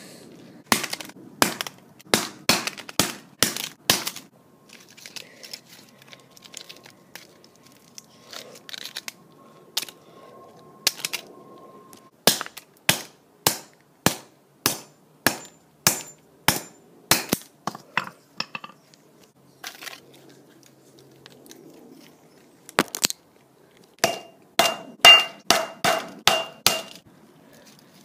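Hammer blows smashing a cheap cell phone against concrete. The sharp strikes come in runs, about two a second, with clinking and crunching of the breaking phone. The fast last run has a metallic ring.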